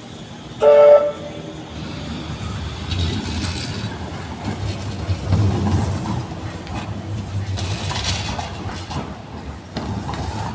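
Metrolink M5000 tram passing close by on street rails, its wheels and running gear giving a steady low rumble. About half a second in it sounds a short, loud warning horn.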